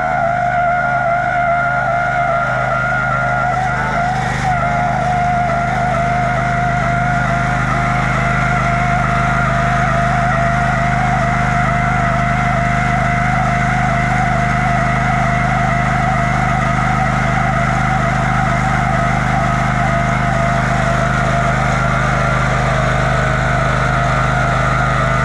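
Riding lawnmower engine running flat out at a steady, unchanging pitch.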